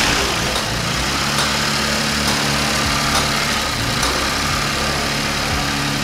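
Infiniti Q50's VR30 twin-turbo V6 idling steadily on its first start after a timing chain replacement. It is running fine, a good sign that the new chains are timed right.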